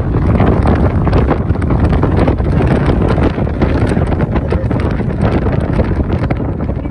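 Wind buffeting the microphone over the rumble of a vehicle driving along a dirt road.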